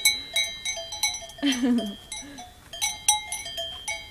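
Cowbells worn by dairy cows clanking irregularly, sharp strikes that each ring on at several pitches.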